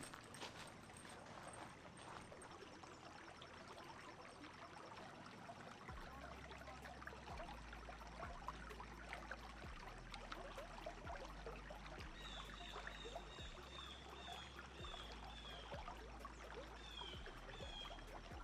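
Water trickling steadily, as of a small stream. From about two-thirds of the way in, a bird gives a quick run of short, high, repeated chirps, then a few more near the end.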